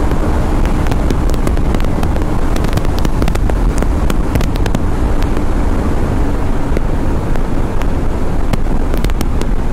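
Motorcycle at highway speed, about 150 km/h: wind rushing over the helmet-level microphone with crackling buffets, and the engine's steady drone underneath.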